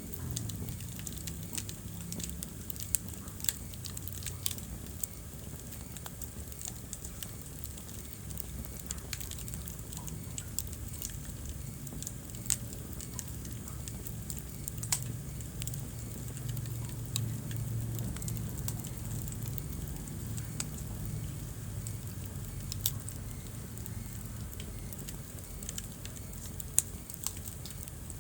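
Wood fire burning in a fireplace: a steady low rumble of flames with irregular crackles and a handful of sharper pops.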